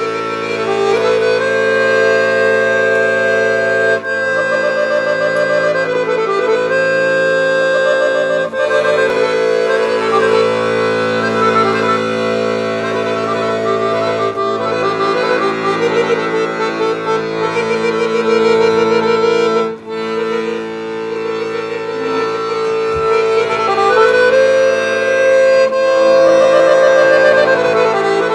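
Brandini piano accordion played solo: a moving melody over sustained lower notes, with a few brief breaks in the sound.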